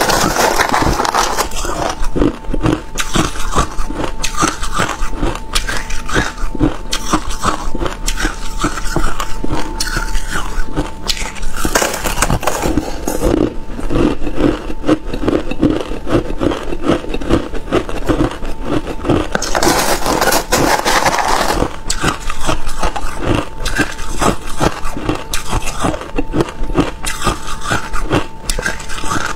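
Crushed ice being chewed and crunched close to a clip-on microphone, a dense, continuous run of crisp cracks and crackles. A few times a metal spoon scrapes and scoops through the ice in the plastic tub.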